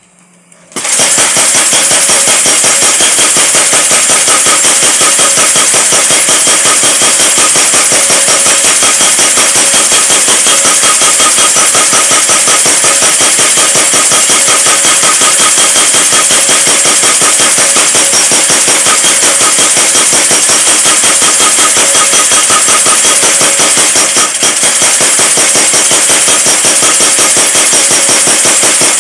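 Mechanical power hammer running, striking in a rapid, continuous stream of blows that starts abruptly about a second in, with a brief dip about three-quarters of the way through.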